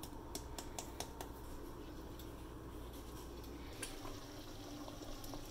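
A quick run of light clicks and taps from a plastic-capped spice jar as cinnamon is shaken into a pot, about five in the first second or so, then one more click and faint stirring of sauce with a wooden spoon.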